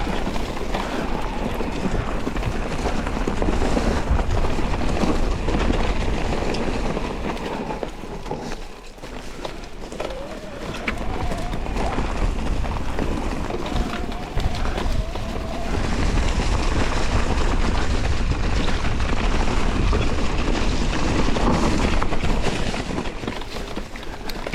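Electric mountain bike ridden along a dirt trail: continuous tyre and rattle noise with low rumble, easing briefly about a third of the way in, and a faint whine that rises and falls at times.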